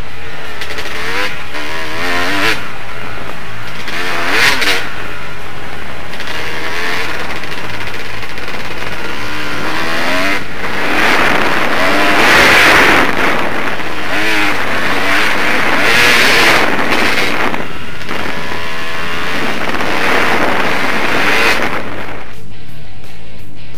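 Off-road motorcycle engine running on a trail ride, its pitch rising and falling repeatedly as the throttle opens and closes. A loud rushing noise swells through the middle.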